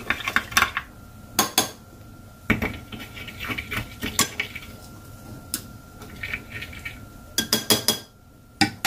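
A long metal spoon stirring liquid in drinking glasses, clinking against the glass walls in short runs of quick clicks. About halfway through it moves from one glass to the other.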